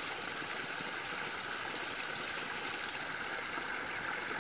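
A small trickle of water falling over rocks into a shallow creek pool, splashing and babbling steadily.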